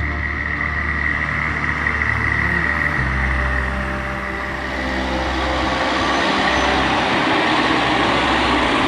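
Claas Xérion 5000 tractor engine running under load while pulling a plough, a steady low drone with a broad rushing noise that grows louder from about halfway through.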